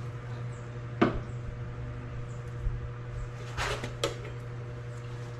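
Parts or tools being handled during car strut work: three short sharp knocks, the loudest about a second in and two more close together near four seconds, over a steady low hum.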